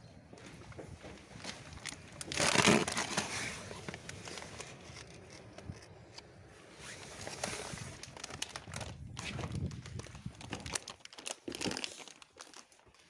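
Footsteps crunching and crackling over rubble and debris, with a loud rustling burst about two and a half seconds in.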